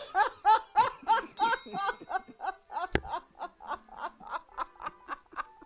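A man laughing hard in a rapid, rhythmic 'ha-ha-ha', about four bursts a second, loudest at the start and gradually fading.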